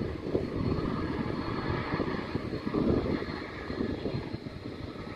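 Twin-engine jet airliner's engines rumbling steadily as it rolls along the runway, with a faint steady high whine above the rumble.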